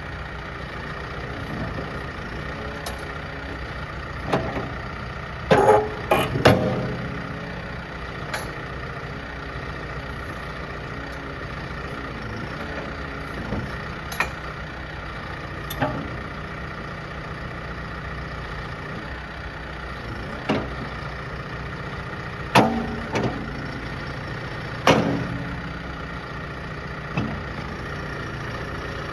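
Diesel engine of a John Deere 410L backhoe loader idling steadily, with sharp knocks or clunks: a loud cluster about six seconds in and two more about 23 and 25 seconds in.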